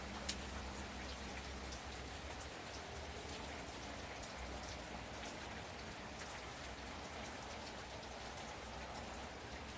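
Gentle rain falling steadily, with scattered sharp crackles and pops from a fireplace fire.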